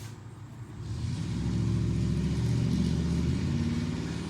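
A motor vehicle engine running, swelling about a second in and shifting slightly in pitch, then easing a little near the end.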